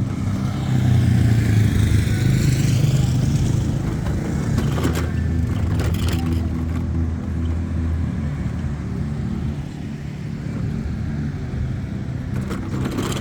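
A motor vehicle's engine passing close by, growing louder about a second in and easing off after about eight seconds. There are a couple of short knocks midway.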